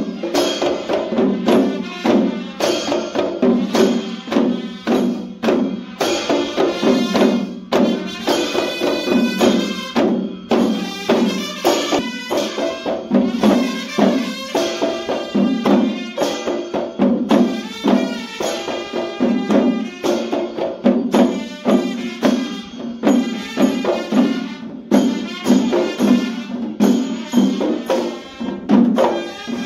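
Group of dhimay, the large two-headed Newar barrel drums, played together in a fast, dense traditional rhythm, stick strokes on one head and hand strokes on the other, with a metallic ringing above the beats.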